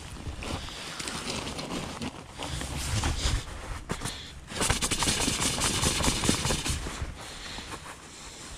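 Close rustling and crunching handling noise: a puffy jacket brushing against the microphone and gravel shifting underfoot, with scattered clicks. It is loudest for a couple of seconds just past the middle.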